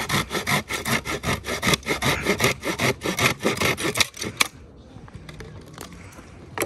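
Hand saw cutting firewood with quick back-and-forth strokes, about four a second, stopping about four and a half seconds in.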